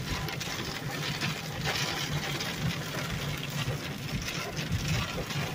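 Steady road noise inside a moving car in the rain: tyres hissing on the wet pavement over a low, even engine and road hum.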